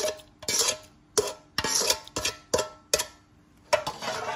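Electric blender switched on in short pulses, a string of brief bursts about two a second, its blades struggling with an overfull jar of coriander, garlic, chillies and liquid that is too much to blend easily.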